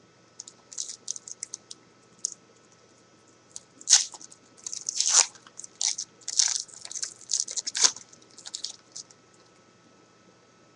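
A trading-card pack wrapper being torn open and crinkled by hand: irregular crisp crackles, densest and loudest in the middle stretch, with some rustling of the cards.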